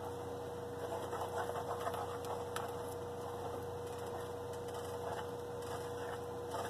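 A steady hum with faint scrapes and a few light clicks from a black plastic spoon stirring butter sauce in a stainless steel pot.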